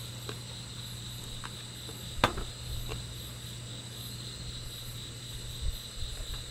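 Crickets chirping steadily in the night over a low steady hum, with one sharp knock about two seconds in.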